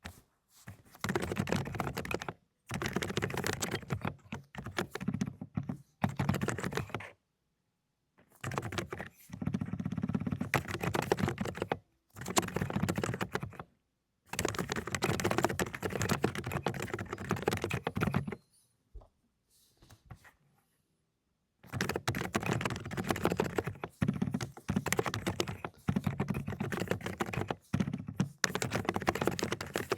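Fast typing on a Dokgeomi (Aula) mechanical keyboard with low-noise 'cotton candy' linear switches: dense runs of rapid keystrokes lasting a few seconds each, broken by short pauses, the longest about two-thirds of the way through.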